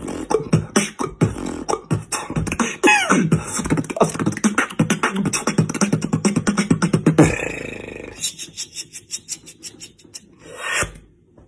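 Solo beatboxing: a dense run of sharp mouth-percussion sounds mixed with sliding, falling vocal tones, turning about seven seconds in to a sparser, evenly spaced pattern of sharp percussive sounds that stops shortly before the end.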